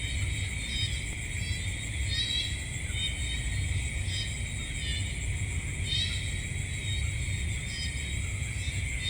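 Night insect chorus: a steady high-pitched trilling, with shorter chirps repeating about once a second, over a low steady rumble.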